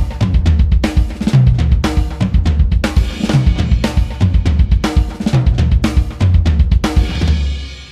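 Sampled drum kit from the EZdrummer 3 Funkmasters EZX library playing a groove of kick, snare, rimshots and cymbals, trailing off near the end.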